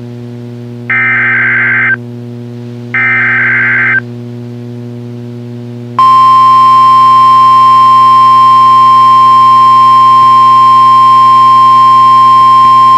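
NOAA Weather Radio test alert: two one-second bursts of buzzing SAME digital header data, about a second apart. About two seconds later the steady single-pitch 1050 Hz warning alarm tone comes on and holds, all over a low steady receiver hum.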